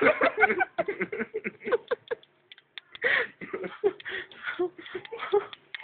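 People laughing hard in rapid, breathy bursts, with a louder peak of laughter about three seconds in.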